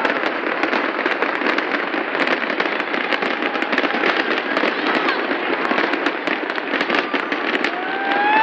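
A large fireworks display going off: a dense, continuous crackling and popping of many overlapping small bangs, with no pause.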